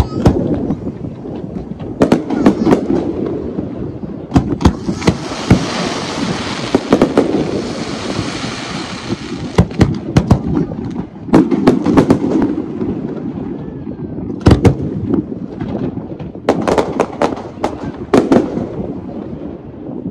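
Fireworks display: repeated sharp bangs of shells going off, irregular and sometimes in quick clusters, over a low rumble. Through the middle there is a long spell of hissing crackle.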